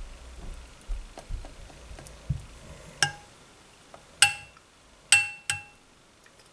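Metal spoon clinking against a glass baking dish four times in the second half, each strike leaving a short ringing note, while it spreads thick chocolate pudding. A few soft low knocks come before them.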